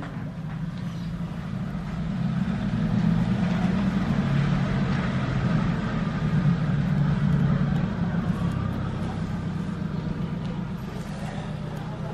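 Car engine running through an HKS-style aftermarket muffler, giving a smooth, deep bass exhaust note. It grows louder about two seconds in and eases back after about eight seconds.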